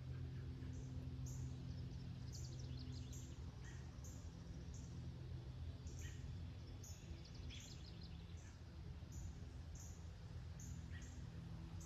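Songbirds chirping with short, high, repeated calls and a couple of brief trills, over a steady low hum.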